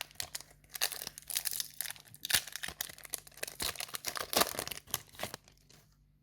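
A Yu-Gi-Oh booster pack's foil wrapper being torn open and crinkled: a rapid run of crackles and tearing that stops about five and a half seconds in.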